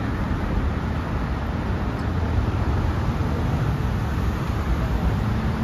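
Steady rumble of car traffic on the Brooklyn Bridge roadway, a continuous low noise heaviest in the bass, with a faint tone rising slightly near the end.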